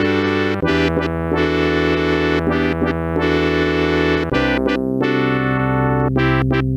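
A Yamaha MA-series mobile-phone sound-chip demo played in the MidRadio player: synthesized electric-piano-like keyboard music with sustained chords over a bass line. The bass moves to a new note about half a second in and again about four seconds in.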